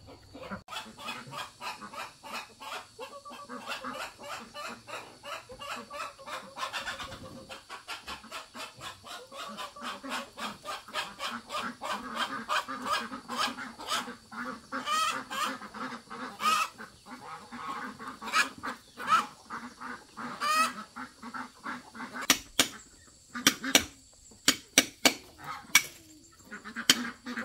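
Farm poultry calling: a busy, continuous run of short, repeated honking and quacking calls. In the last few seconds there is a string of sharp, loud knocks or taps.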